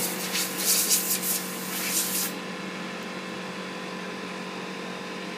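Power tool sanding wood: a motor runs steadily while the abrasive rubs against the wood in repeated strokes, and the rubbing stops abruptly about two seconds in, leaving the motor running on its own.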